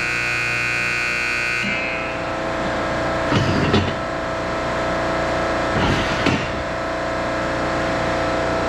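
Ice rink's steady mechanical hum, with a scoreboard horn sounding for about two seconds at the start, the end-of-game horn. A couple of short scrapes of hockey skates on the ice come near the middle.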